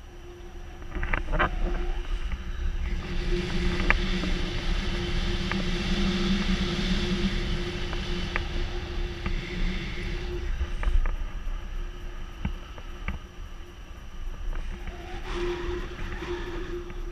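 Wind buffeting the microphone of an action camera on a pole during a paraglider flight. It is loudest from about a second in until about ten seconds, then eases, with a steady faint hum and a few light clicks underneath.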